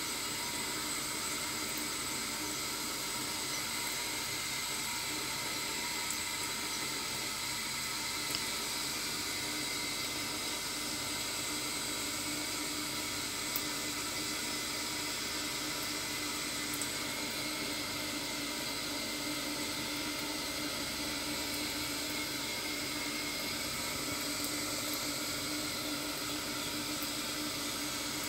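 Thin stream of tap water running steadily into a stainless steel sink, a constant hiss with a few faint ticks.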